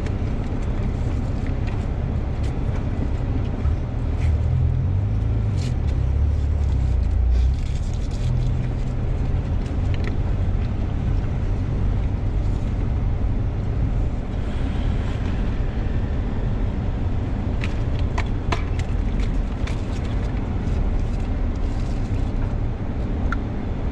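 Steady road and engine rumble inside a moving car's cabin, swelling for a few seconds near the start, with a few light clicks or taps.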